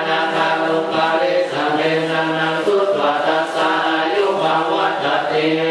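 A group chanting Buddhist prayers in unison, held on a low, steady pitch with slow changes of note.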